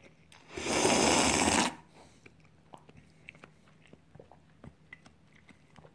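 A loud slurp from a bowl of tonkotsu ramen, lasting about a second, followed by faint chewing and small clicks.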